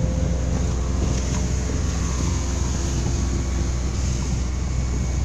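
A motorboat engine running steadily with a low hum, with wind on the microphone and water noise over it.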